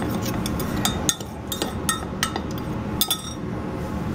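Metal spoon clinking against the side of a glass measuring cup while stirring dry flour and seasonings together: a quick, uneven series of clinks that stops about three seconds in.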